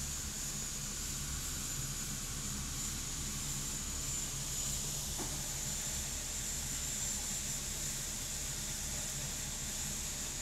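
Steady hiss with a low hum underneath, unchanging throughout, broken only by a faint tick about five seconds in.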